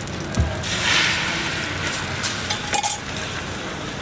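Frying on a burger stall's griddle: a steady sizzling hiss with a low thump near the start and a few sharp metal clinks and taps from the cook's utensils.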